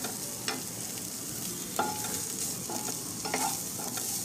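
Corn, carrot strips and onion sizzling in a nonstick frying pan while a spatula stirs them, with a few short scrapes of the spatula against the pan.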